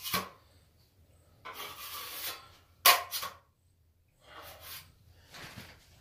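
Two steel plastering knives scraped against each other, working plaster off one blade onto the other: several short scrapes with a sharper knock about three seconds in.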